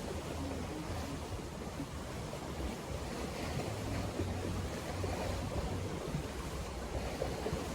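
Steady wash of wind and surf-like noise, with wind rumbling on the microphone.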